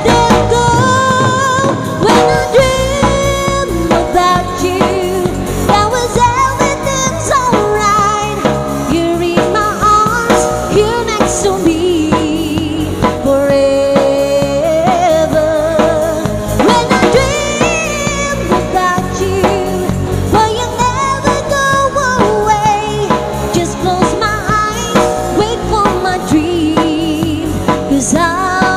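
Live band playing a pop ballad: a woman singing into a microphone over bass guitar and drum kit, amplified through a PA.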